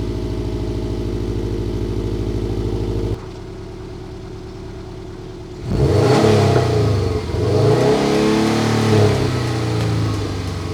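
Subaru WRX STI's turbocharged 2.5-litre flat-four boxer engine running with fresh oil: a steady idle, then a sudden drop to a quieter stretch about three seconds in, and from about six seconds in it revs up and down.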